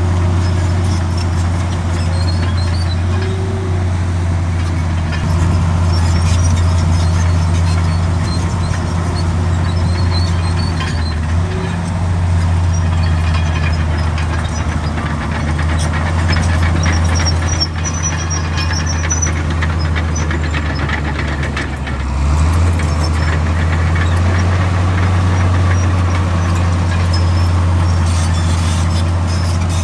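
Heavy diesel engine of a Komatsu D65 bulldozer running steadily under work, dipping briefly and then picking up again about 22 seconds in, with faint high squeaks over it.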